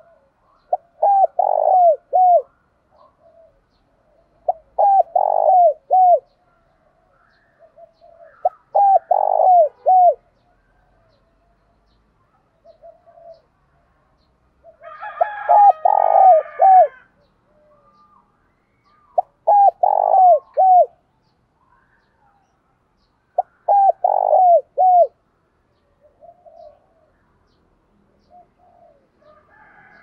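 Spotted dove cooing: a phrase of three or four short hooting notes, repeated about every four seconds. This is the call that dove-keepers use to rouse and draw in wild doves. About halfway through, a busier, higher sound overlaps one phrase.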